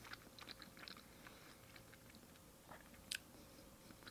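Faint chewing of raw fish sashimi: scattered soft, wet mouth clicks, with one sharper click about three seconds in.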